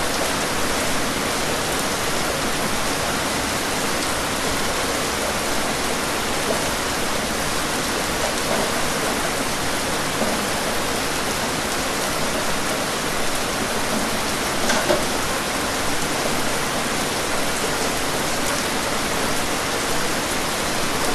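Steady rain falling, an even hiss without let-up, with one brief louder tap about fifteen seconds in.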